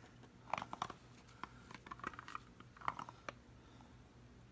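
A few faint, short clicks and squishes from the cut lid being pressed down into an opened can of tuna to squeeze out the liquid.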